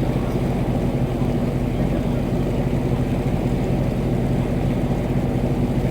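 Boat engine running steadily: a constant low, even drone with no change in speed.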